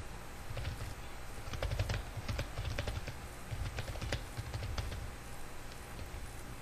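Typing on a computer keyboard: a run of quick key clicks that stops about five seconds in, over a low steady hum.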